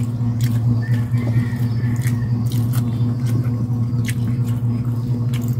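Close-up eating sounds: scattered soft clicks and smacks of fingers picking at shell-on shrimp and of chewing, over a steady low electrical hum.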